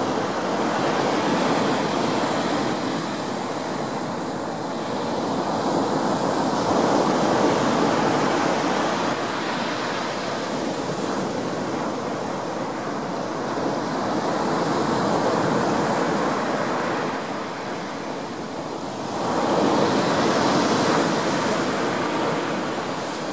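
Rough sea surf breaking and washing up a beach, a steady rush that swells and eases every several seconds.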